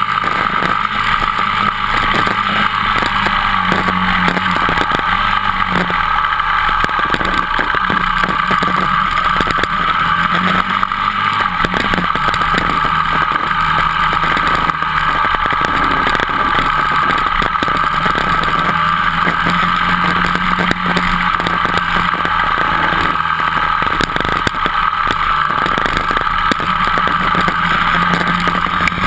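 Dirt bike engine running hard while riding, heard up close from a camera on the bike, its pitch rising and falling a little with the throttle.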